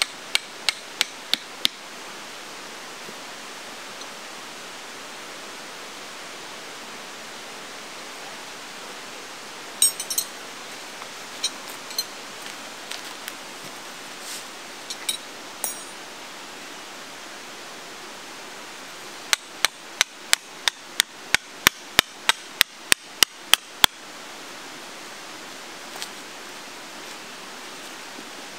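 Metal tent stakes being hammered into the ground: a few quick strikes at the start, scattered light clinks in the middle, then a fast run of about fourteen sharp blows, roughly three a second, in the second half. A steady hiss runs underneath.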